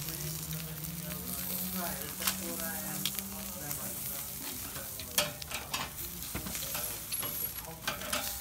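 Sausages and prawn skewers sizzling on a charcoal kettle grill's grate, a steady hiss with scattered crackles and pops.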